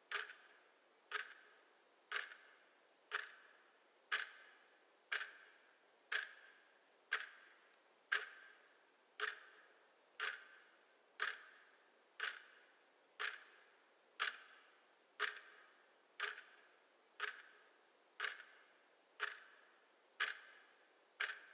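Clock ticking steadily at one tick a second, each tick a sharp click with a short ring after it.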